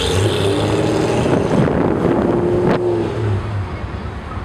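Corvette Z06's 7.0-litre V8, breathing through long-tube headers, an X-pipe and a Corsa Sport catback, pulling hard under acceleration with its pitch dipping and climbing again. About three seconds in it lets off and the sound drops back to a lower drone.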